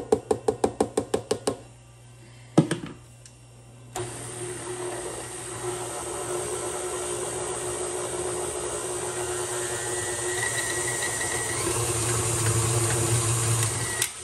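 A quick run of taps, about eight a second, then a single knock; about four seconds in a stand mixer starts and runs steadily with a motor hum, its flat beater working a flour-and-butter dough.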